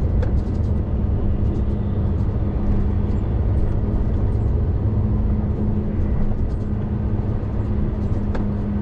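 Class one articulated HGV running steadily along the road, heard from inside the cab as a continuous low drone of diesel engine and road noise with a steady hum.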